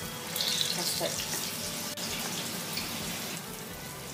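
Cabbage and urad dal vadas deep-frying in hot oil in an iron kadai: a steady sizzle and bubbling that swells about half a second in, as a fresh piece of batter goes into the oil.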